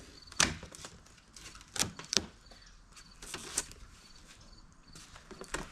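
An exhaust's shipping box and packing being handled: several sharp knocks and rustles, the loudest about half a second in.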